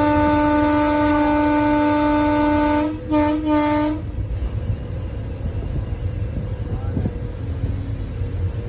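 Train horn sounding one long blast, then two short toots about three to four seconds in, over the low rumble of the moving train, which carries on alone after the horn stops.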